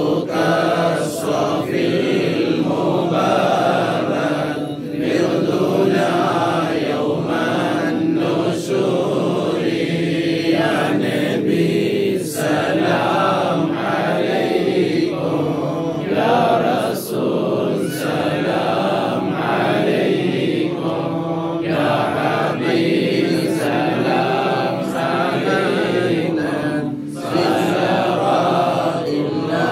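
Men chanting a moulid, Islamic devotional verse in praise of the Prophet, one voice leading from a booklet and others joining in. The chant runs on with brief pauses for breath.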